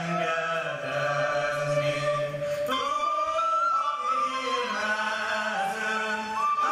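A group of voices singing a Hungarian folk song for a circle dance, on long held notes that change pitch every second or two.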